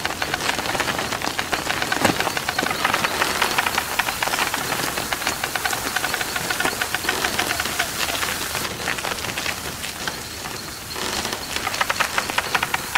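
Snail shells rolling over fine gravel: a dense, steady crackling crunch of many small clicks, easing briefly near the end before picking up again.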